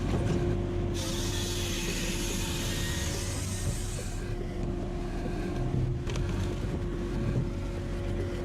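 Firewood processor running: a steady engine and hydraulic hum with a held tone, and a hiss for about three seconds shortly after the start.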